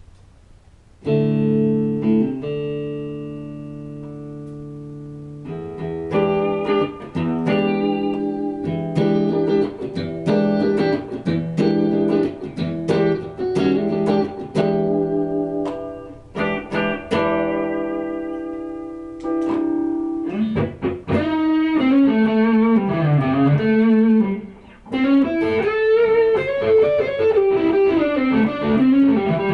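Solo electric guitar: a chord struck about a second in and left to ring, then a phrase of picked notes, and quicker runs of single notes in the second half.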